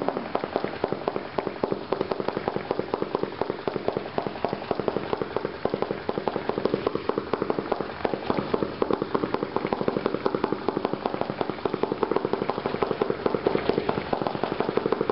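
Brothers Blue Blitz firework cake firing a rapid, even string of small pops, many a second, stopping near the end.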